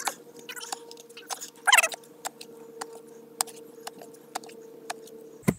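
Clamshell post hole digger blades working in a hole in red clay: scattered clicks and gritty scrapes, with a louder crunch about two seconds in, over a faint steady hum.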